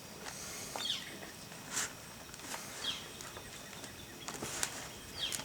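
A bird's short, downward-gliding chirp, repeated about every two seconds, over rustling and scraping of hands digging through garden soil.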